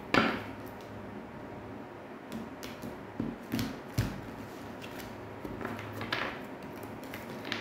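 A few light clicks and taps of tarot cards being handled on a table, spaced irregularly.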